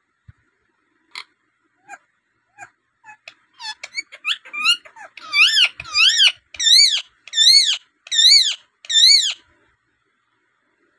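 Rose-ringed parakeet calling: a few short soft chirps, then from about five seconds in a run of about six loud calls, each rising and falling in pitch, about one and a half a second.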